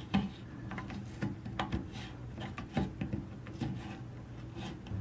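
Faint scattered clicks and rubbing as a water supply line's coupling nut is threaded by hand onto the plastic shank of a toilet fill valve, over a steady low hum.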